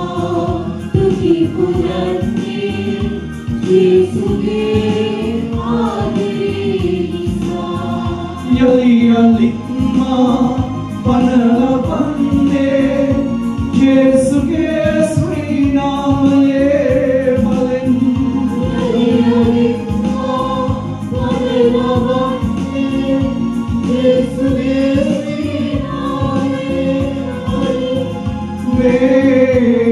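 Christian worship song sung by a male lead voice with backing singers, over an instrumental accompaniment with a steady beat.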